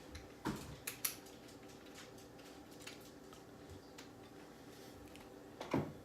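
A few light plastic clicks in the first second, as the Milwaukee M12 crown stapler's adjustment is turned up, then quiet handling of the tool with a short rustle near the end.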